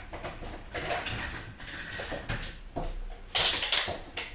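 Light clicking and clattering of small tools and parts being handled on a workbench, with a louder hissy scrape about three seconds in.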